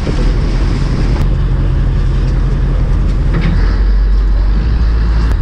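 Fishing boat's engine running steadily: a constant low hum with a noisy wash over it.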